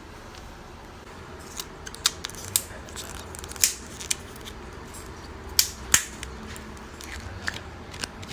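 Slime being squeezed and poked by hand, giving sharp, irregular clicks and pops that start about a second and a half in.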